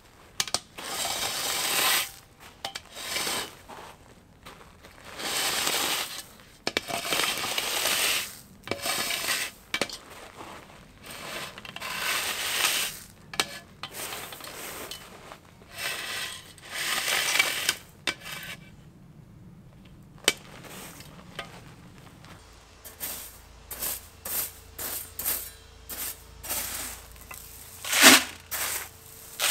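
Fine gravel ballast being scraped and pushed around with the edge of a spirit level and gloved hands, in repeated swishing, grinding bursts. Later, small stones are tipped from a plastic bucket and sprinkled by hand onto the track, rattling in quick clicks.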